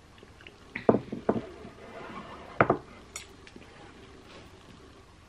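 Ceramic mug knocking on a hard desk top as it is set down: three quick knocks about a second in, then a single sharper knock. A couple of light clicks follow.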